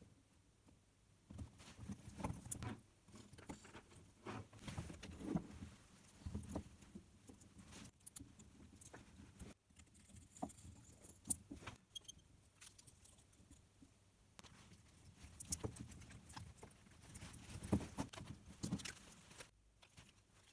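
Quiet, irregular clicks and taps as NiCd battery cells and their metal tabs are handled and soldered together into a pack.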